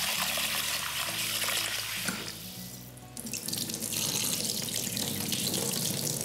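Kitchen tap running into a bowl of soaked cashews as they are rinsed, with water splashing and pouring off into the sink. The water sound drops away briefly about two and a half seconds in, then picks up again.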